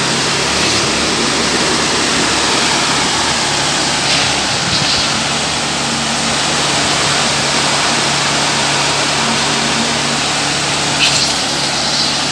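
Concrete mixer truck's engine running steadily during a direct pour, with a couple of short scrapes or knocks.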